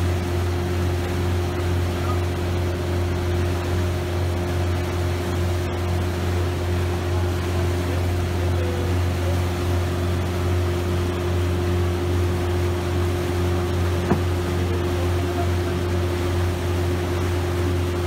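A yacht's engine drones steadily under way, a constant low hum over the hiss of water rushing past the hull. A single sharp tap sounds about 14 seconds in.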